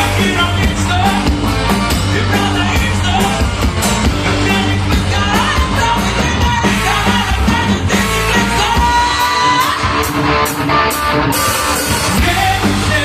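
Live heavy metal band playing loudly: distorted guitars, bass and drums with a singer's voice over them.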